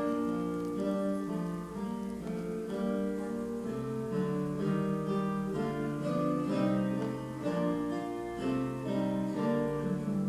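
Background music on acoustic guitar: a continuous run of plucked notes.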